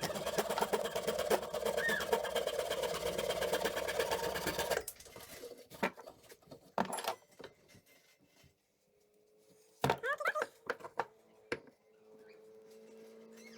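A power tool running against a solid oak blank for about five seconds, then stopping, followed by scattered knocks and handling clicks. A brief voice-like sound comes about ten seconds in.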